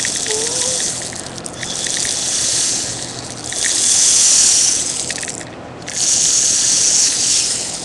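Breath blown hard into the hole of a homemade pill-bottle BB gun, four long rushing puffs with short gaps between them, and a few faint clicks among them.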